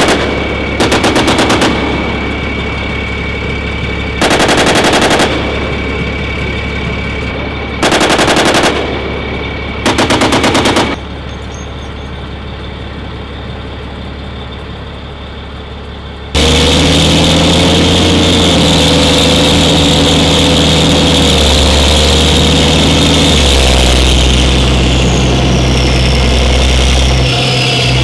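Turret-mounted machine gun on a Humvee firing short bursts of automatic fire: about five bursts of roughly a second each over the first eleven seconds, with a low engine hum between them. About sixteen seconds in, this gives way to the Humvee's diesel V8 running loudly, heard from aboard the moving vehicle, its pitch changing as it drives.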